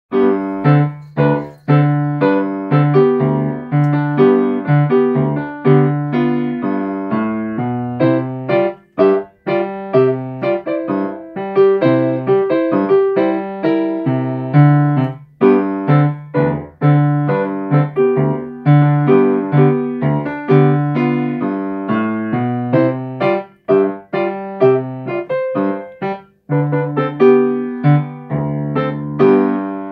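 Yamaha grand piano played by a child: a ragtime-style piece with a steady bass line under a melody of short struck notes, broken by a few brief pauses.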